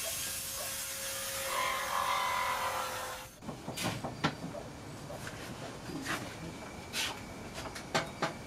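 Hitachi rotary tool running at full speed with a steady high whine while cutting, cutting off abruptly about three seconds in. Then a sanding block scrapes by hand across the camper's ceiling panel, with irregular sharp knocks and clicks.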